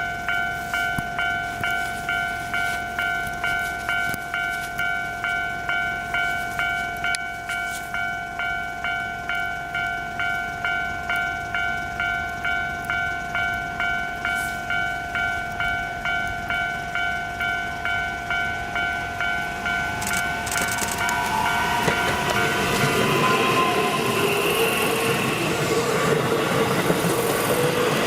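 Japanese railway level-crossing warning bell ringing in a steady, ringing clang, about one and a half strikes a second. From about 21 s in, a Keihan 7000 series electric train passing over the crossing grows loud and covers the bell.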